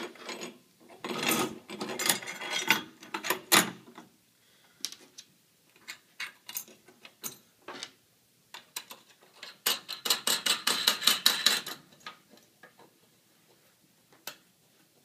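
Steel clamp brackets and their threaded studs clinking and rattling against an aluminium mounting pipe as the clamps are fitted around it. There are two runs of clatter, about a second in and about ten seconds in, with scattered clicks between.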